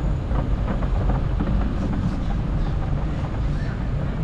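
Wind buffeting a GoPro Hero9 Black's microphone while cycling along, heard as a steady low rumble with faint rolling noise on top.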